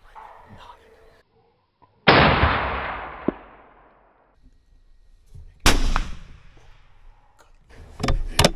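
Two rifle shots about three and a half seconds apart, each a sharp report followed by a rolling echo that fades over a second or two. A few quick clicks near the end.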